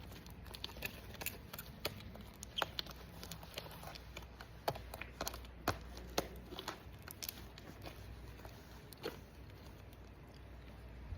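Sticky homemade slime being kneaded and stretched by hand, making irregular small clicks and sticky pops.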